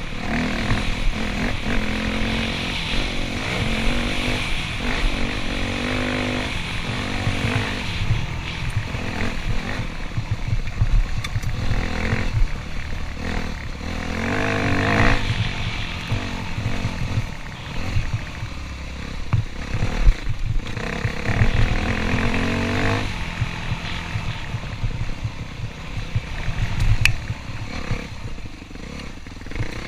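Dirt bike engine being ridden, its pitch rising and falling repeatedly as the throttle is opened and closed, with heavy wind buffeting on the microphone.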